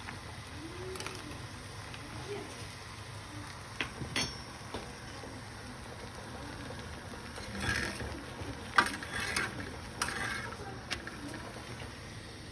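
Kitchen utensils being handled: scattered light clicks and knocks, with a small cluster of clattering about eight to ten seconds in, the sharpest knock just before nine seconds.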